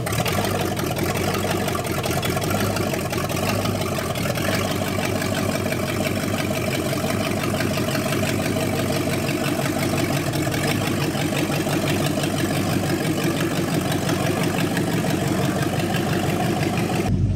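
Newly assembled engine of an old Dodge police car idling steadily while the car backs slowly off a drive-on lift under its own power.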